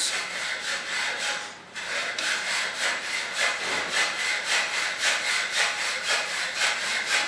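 Rhythmic back-and-forth rasping of a hand tool being worked, about three strokes a second, with a brief pause about a second and a half in.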